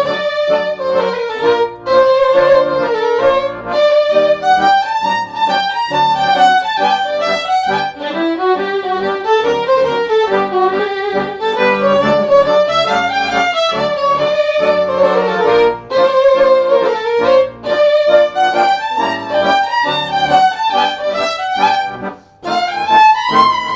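Hungarian folk tune played on a violin: a bowed melody rising and falling over steady held lower notes, with a brief break near the end.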